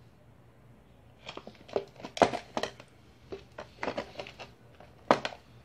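Handling noise of a hard plastic iPhone 5c box and the phone: irregular clicks, taps and light scrapes of plastic being picked up, moved and set down, starting about a second in.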